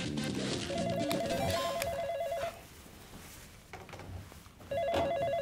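Landline telephone ringing with a fast warbling electronic trill: two rings about two seconds apart.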